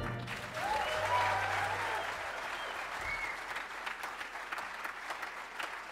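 Audience applauding, with a few cheering voices in the first few seconds, the clapping slowly dying down.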